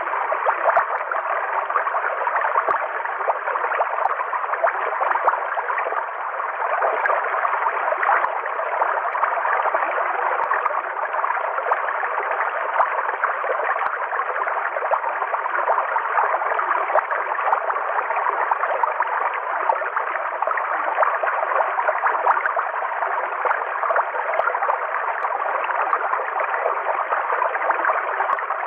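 River water flowing steadily, a continuous rushing and gurgling with small splashes scattered through it.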